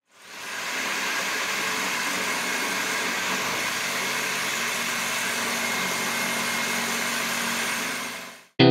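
Electric jigsaw running steadily as it cuts through a panel: an even, buzzing saw noise. It fades in at the start and fades out near the end.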